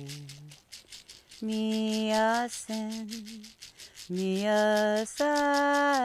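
A woman singing a slow song in long held notes, broken by short pauses for breath, while shaking a hand rattle in a steady beat of about five shakes a second.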